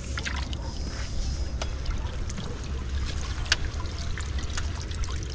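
Water running and dripping off a whitebait scoop net's mesh as it is lifted out of the river, with scattered sharp drips and clicks over a steady low rumble.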